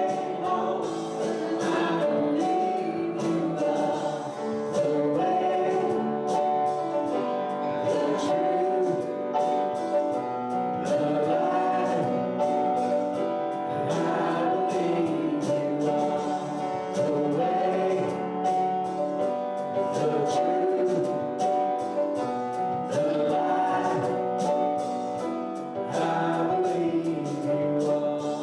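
Voices singing a gospel song over instrumental accompaniment, with a steady percussive beat.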